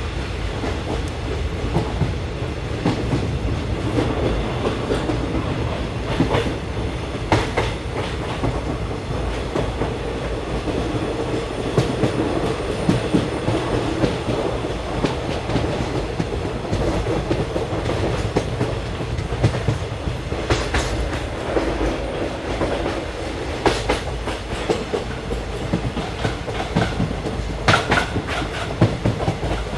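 Train running along the track: a steady low rumble with irregular sharp clacks of the wheels, some in close pairs, over rail joints.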